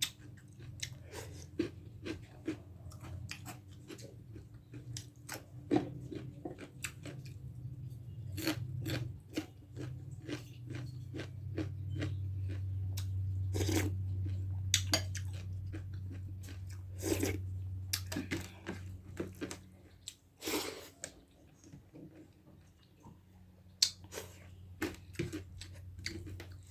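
A person eating close to the microphone: chewing and biting, with frequent short sharp mouth clicks and smacks.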